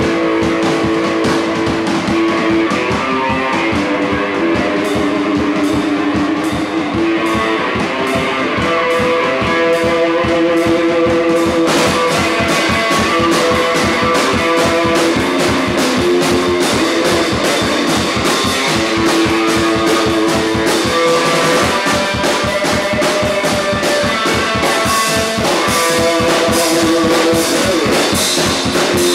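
Electric guitar and a Gretsch drum kit playing rock together, the guitar holding sustained lead notes over a steady drum beat; the cymbals get brighter about twelve seconds in.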